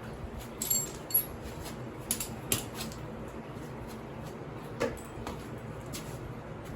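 Scattered metallic clinks and taps of hand tools and loose metal parts on a dirt bike's swing arm as it is taken apart, a few of them ringing briefly, about half a dozen in all.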